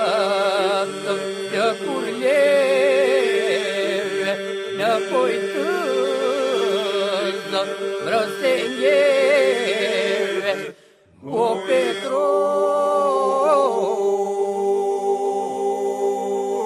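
Albanian Lab polyphonic song sung a cappella: voices hold a steady drone while a solo line wavers and ornaments above it. It breaks off briefly about eleven seconds in, then resumes over the drone.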